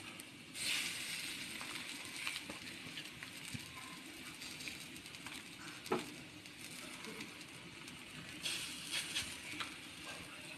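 Cashew-paste patties sizzling softly as they are laid on a hot, lightly oiled tawa griddle: a burst of sizzling about half a second in that fades, then another near the end as the next patty goes down. A small click around the middle.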